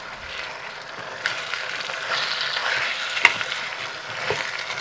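Raw minced meat sizzling on fried carrots and onions in a hot kazan as a metal spoon stirs it, the sizzle growing louder about a second in. One sharp click about three seconds in.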